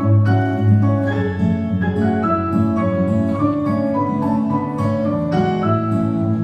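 Keyboard accompaniment playing an instrumental passage of sustained chords under a slow melody line, with no voice.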